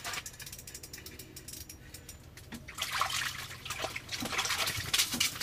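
An ice-fishing reel being cranked fast, a run of fine clicks, then from about halfway water splashing and dripping as a hooked walleye is brought up into the ice hole.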